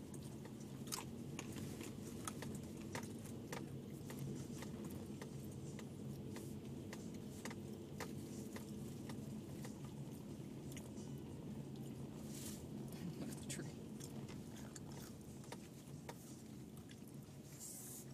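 Inside a moving 2010 Subaru Forester: the steady low hum of the engine and tyres at low speed, with irregular sharp clicks and crackles, about one or two a second.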